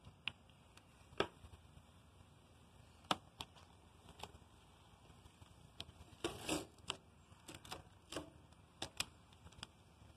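Paper masking stencil being peeled off freshly sprayed paint: scattered crinkles and crackles of stiff paper, with a short rustle about six seconds in.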